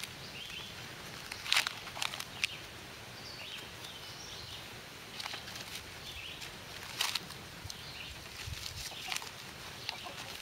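A stack of bullet-torn paper pages rustling and crinkling as it is handled and leafed through, in several short rustles. Faint bird calls sound in the background.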